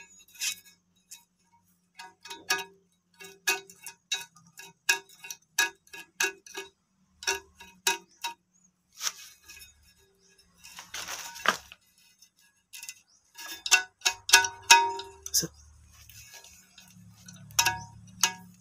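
Irregular clicks and knocks of a plastic nut and fitting being worked by hand against a ceramic toilet tank, each making the tank ring briefly. A short scraping sound about eleven seconds in.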